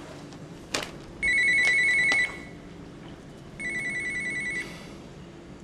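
Electronic telephone ringer trilling twice, each ring about a second long, the first louder than the second. A short rustle comes just before the first ring.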